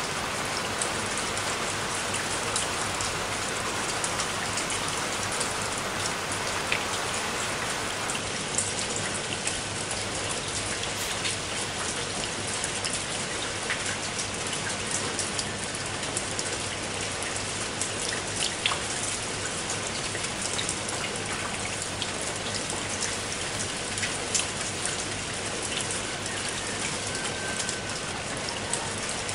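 Steady rain: an even hiss with scattered sharp ticks of drops.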